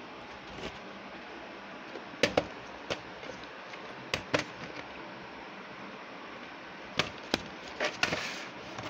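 Plastic VHS tape cases being handled: three clusters of sharp clacks and knocks, with a short rustle near the end, over a steady hiss.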